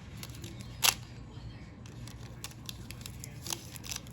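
Small clicks and taps from handling phone parts and tools on a workbench, with one sharp click about a second in and a few fainter ones later, over a steady low hum.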